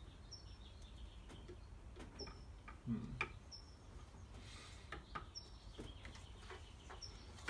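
Light clicks and taps of parts being handled and fitted by hand in a car's engine bay. Over them a small bird's short high chirp repeats every second or two.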